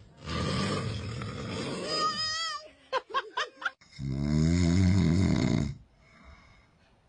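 A man snoring: two long, loud snores about two seconds each, the first raspy and the second deeper and more droning, with a few short vocal sounds between them.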